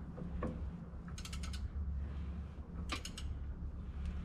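Socket ratchet clicking in two short strokes as it turns the crankshaft of a Detroit Diesel 6-71 by hand, rolling a newly fitted piston down in its liner. A steady low hum runs underneath.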